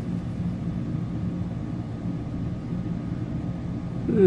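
A steady low hum or rumble. About four seconds in comes a brief vocal sound.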